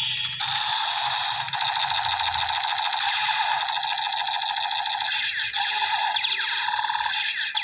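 Electronic sound effect from a battery-powered toy AK-47 gun, played through its small speaker: a steady, fast rattle of simulated automatic fire over a held electronic tone.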